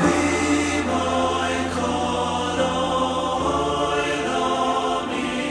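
Slow, soft music with voices singing sustained chords over a held bass note. The chord changes a little past halfway.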